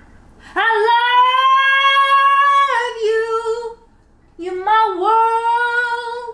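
A woman's voice holding two long high sung notes, each sliding up into the note and dropping away at its end, with a short break between them.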